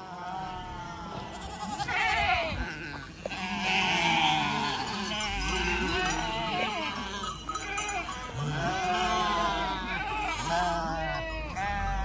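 Several goats bleating repeatedly, their wavering calls overlapping one another.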